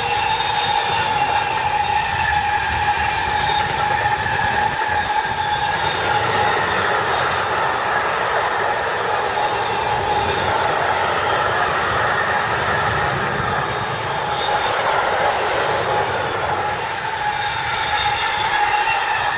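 Railway train passing close by: a continuous loud rumble of wheels on the rails with a steady high whine held throughout.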